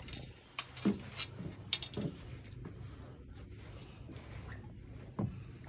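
A few short knocks and scrapes as a large fish is handled on a concrete dock, mostly in the first two seconds with one more near the end, over a low steady hum.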